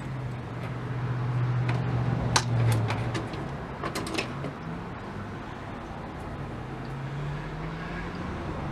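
A few sharp clicks and light taps from a vacuum tube being fitted into a tube tester's socket and the tester's controls being set, over a steady low hum.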